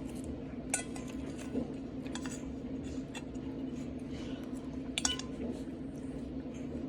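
Metal cutlery clinking against a plate while eating: several sharp clinks, the loudest about five seconds in and ringing briefly. A steady low hum runs underneath.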